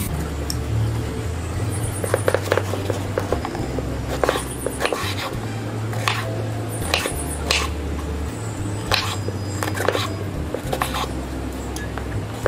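Kitchen knife slicing brinjals on a bamboo cutting board, with irregular knocks of the blade against the board every second or so. Background music with a low bass line runs underneath.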